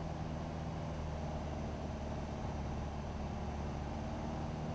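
Single-engine light airplane's piston engine and propeller droning steadily in cruise flight, heard from inside the cockpit as an even low hum.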